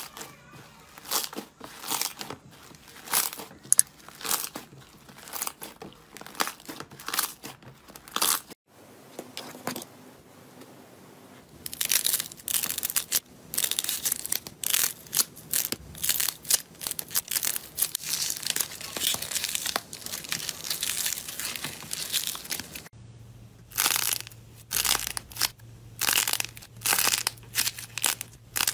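Slime and squishy toys squeezed and kneaded by hand, giving rapid crackling, popping and crinkling sounds. The sound cuts out briefly twice, at about nine seconds and at about twenty-three seconds, as one clip gives way to the next.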